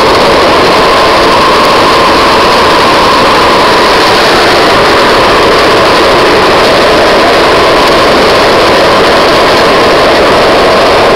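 Loud, steady rushing noise of a downhill ride on asphalt: wheels rolling and wind on the microphone, with a faint steady hum running through it.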